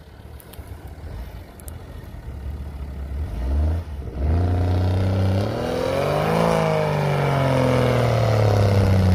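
Off-road 4x4's engine, running fairly quietly at first, then loud from about four seconds in, revving up to a peak about halfway and slowly easing back down.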